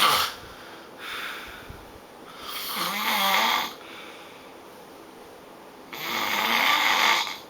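A person snoring loudly, with long rasping snores every few seconds and a shorter, weaker one about a second in.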